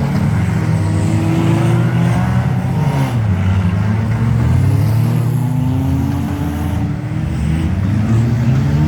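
Several demolition derby cars' engines running and revving together, their pitch rising and falling over and over.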